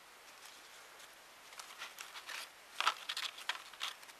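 Paper being handled, a series of short rustles and crinkles starting about a second and a half in, the loudest near three seconds in.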